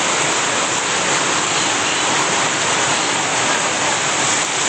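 Heavy rain falling steadily, a dense, even hiss with no break.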